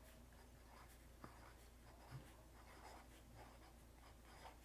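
Faint scratching of a roller-ball pen writing on paper, with a couple of light ticks.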